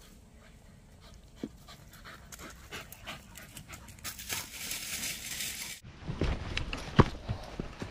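A dog panting hard, hot from climbing in the heat, with a few sharp knocks near the end.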